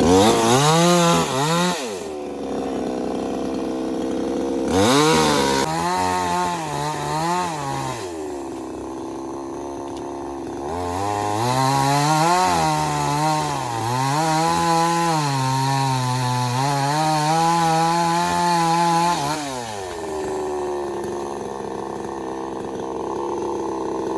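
Two-stroke chainsaw cutting into a tree, its engine pitch rising and sagging under the load of the cut in three spells, the longest near the middle, dropping back to a lower idle between them.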